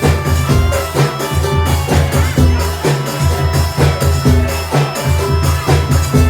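Live jaranan dance music: a driving drum beat over heavy, pulsing bass, with melodic instruments playing sustained lines.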